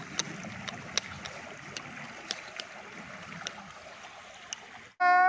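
Shallow stream water running over stones, a steady rushing with scattered small splashing ticks. Near the end it cuts off abruptly and a loud, drawn-out human voice begins.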